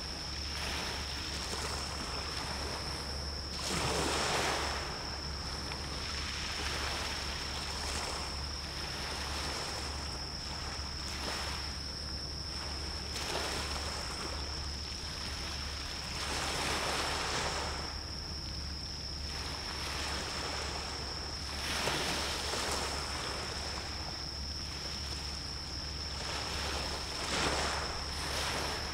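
Waves washing in on the shore, one swell of surf rising and falling every few seconds. Under them are a steady thin high-pitched tone and a low hum.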